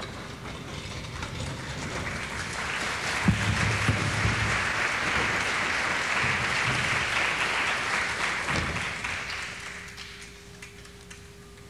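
Theatre audience applauding, swelling over a few seconds, holding, then dying away near the end.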